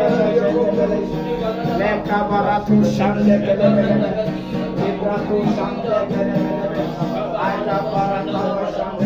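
Gospel worship music playing steadily, with no clear words.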